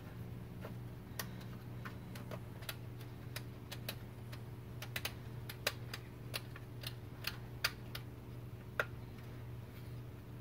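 Irregular light plastic clicks and taps, about twenty of them, as a USB socket and its retention ring are fitted into a plastic console trim bracket, over a faint steady low hum.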